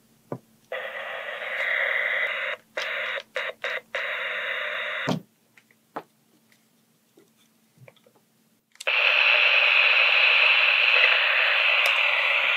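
A pair of 2001 Gundam Wing toy walkie-talkies hissing static through their small speakers. The hiss cuts in and out several times in the first five seconds, with clicks between, then returns as a steady hiss from about nine seconds in: the handsets are powered and receiving.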